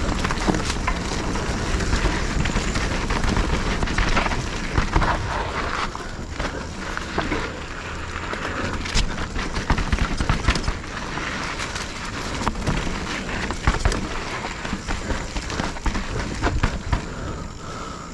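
A 2022 Specialized Stumpjumper Evo Pro mountain bike riding over a rough trail: a steady rushing noise with frequent sharp clicks and knocks as it rattles over bumps.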